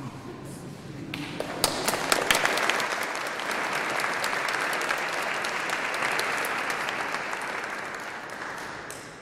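Audience applauding: it starts with a few sharp claps about a second in, swells into steady applause, and fades near the end.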